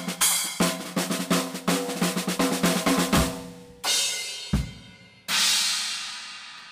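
Drum kit played with quick snare and tom hits for about three seconds. Then come two cymbal crashes with a deep drum hit between them, and the last crash rings out and slowly fades.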